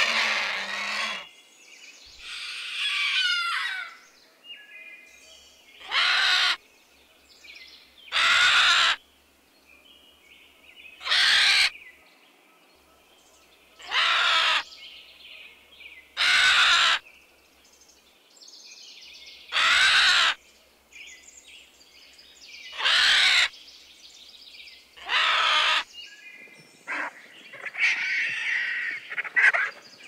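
Vulture giving harsh, rasping calls. They come one at a time about every two to three seconds, each lasting under a second, with a longer rasp early on and a tumbling run of calls near the end.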